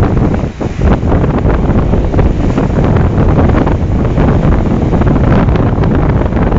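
Strong wind buffeting the microphone with a low, ragged rumble, over heavy storm surf crashing and churning on a rock breakwater.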